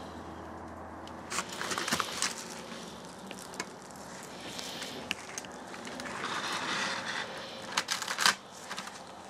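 Heavy-duty aluminium foil of a brisket foil boat crinkling and crackling as it is handled, in several irregular bursts, loudest a couple of seconds in and near the end.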